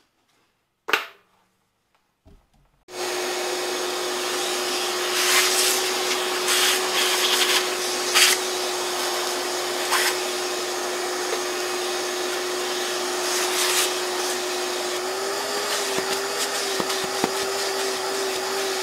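A shop vacuum is switched on about three seconds in and runs steadily with a constant hum, with a few brief crackles as the hose is worked over the bench. A single sharp knock comes about a second in, before it starts.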